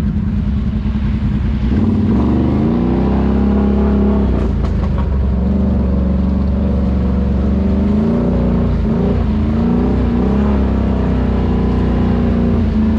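ATV engine running hard. Its revs climb about two seconds in, then hold high, dipping and surging a few times before picking up again near the end.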